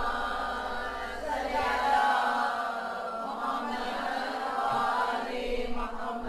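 Devotional chanting: voices in a slow recitation with long held notes.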